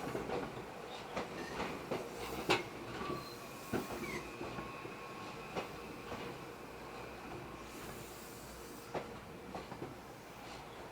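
Meitetsu electric train running through a tight curve: irregular wheel knocks and clatter with faint lingering flange-squeal tones, dying down over the last few seconds.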